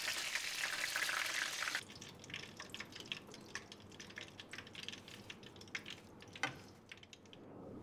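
Epok-epok (curry puffs) sizzling in hot oil in a wok, loudest for the first two seconds, then a fainter crackle as they are lifted out with a wooden spatula, with a light knock about six and a half seconds in.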